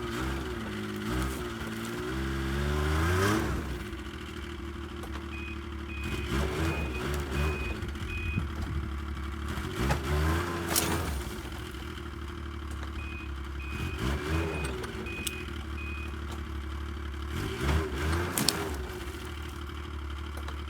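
Yamaha Viking snowmobile engine revving up and dropping back in several surges as it strains to drag a heavy log on a sled that barely moves. A high electronic beeper sounds in two runs of short beeps, the reverse warning as the machine is backed up between pulls.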